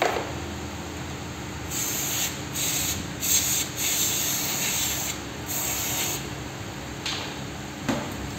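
Aerosol carburettor and throttle-body cleaner sprayed in about five short hissing bursts onto a small metal part being cleaned. A sharp knock comes at the start and another near the end.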